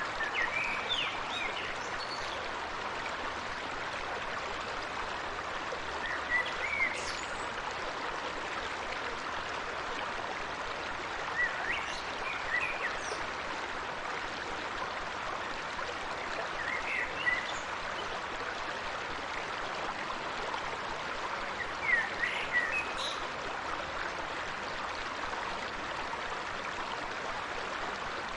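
A small stream flowing steadily with a constant babbling rush. Short clusters of high chirps come about every five seconds, five times in all.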